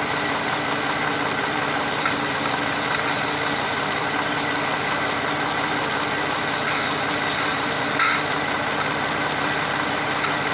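Car engine idling steadily with its air intake removed, heard at the open throttle body while water is misted into it from a spray bottle to burn off carbon deposits. A few brief faint hisses come and go over the idle.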